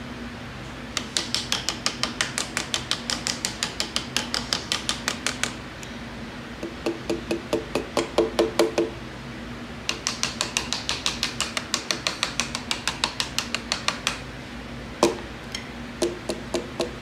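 A piston being tapped down through a band-type ring compressor into a cylinder bore of a Mercedes-AMG M133 engine block. Fast, even runs of light metallic taps come at about eight a second, with a deeper-sounding run in the middle and a few separate harder knocks near the end.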